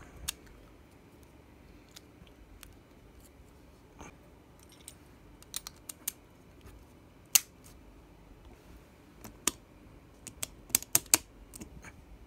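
Beyblade Burst spinning top being assembled by hand: scattered sharp plastic-and-metal clicks as the layer, disc and driver are handled and twisted to lock together. The loudest click comes about halfway through, and a quick run of clicks comes near the end.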